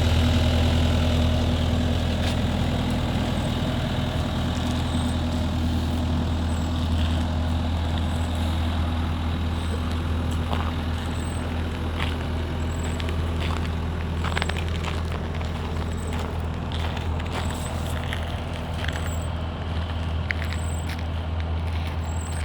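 Case TV380 skid steer's diesel engine idling steadily, with scattered light clicks and ticks over it from about six seconds in.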